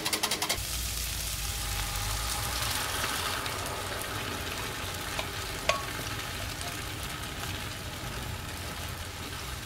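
Food sizzling steadily in a frying pan, with a utensil clicking sharply against the pan once, about six seconds in. A rapid rhythmic rattle stops about half a second in.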